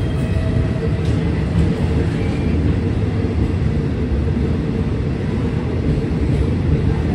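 A passenger train rolling slowly into a station platform, heard from inside a carriage by its window: a steady low rumble of wheels on rail and running gear, with a few faint high squeals.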